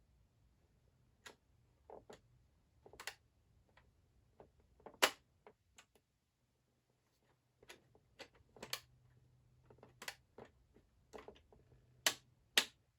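Irregular sharp clicks from the symbol pieces of a McFarlane Toys Riddler puzzle box, pressed and clicking into place one after another. They are sparse at first and come louder and closer together near the end.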